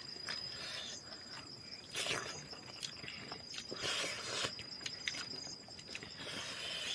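Insects chirring in a steady high tone, with soft rustling swelling up briefly about two and four seconds in, and a few faint clicks.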